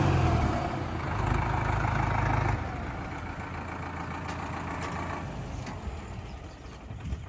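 Two tractor diesel engines running as the tractors drive side by side. The engine sound grows fainter, with a clear drop about two and a half seconds in.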